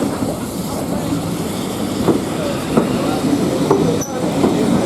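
Steam-hauled heritage train running on jointed track: a steady rumbling rattle of wheels over the rails, with occasional clicks and brief squeals from the wheels.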